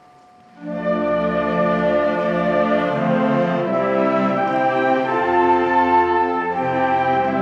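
School concert band of flutes, saxophones, clarinets and brass playing a slow piece: after a brief quiet moment, the full band comes in about half a second in with sustained chords that change every couple of seconds.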